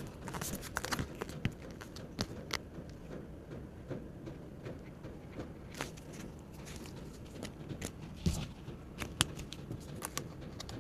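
Hands handling paper banknotes and savings supplies: irregular soft clicks, taps and paper crinkles.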